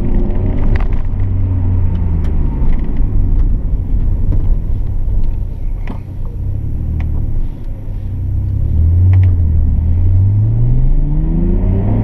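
Nissan Skyline R32 GT-R's twin-turbo RB26DETT straight-six heard from inside the cabin, running steadily and then revving up under acceleration over the last few seconds, with the turbos boosting as they should. Sharp knocks from the rough road surface come through now and then.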